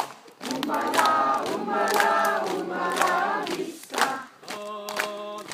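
Group of voices singing a campfire song together, with sharp claps about once a second; near the end the voices hold a long note.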